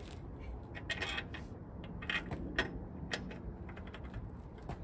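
Scattered light clicks, rattles and short scrapes of a screw and parts being fitted into an EGO 56-volt two-stage snow blower by hand during assembly.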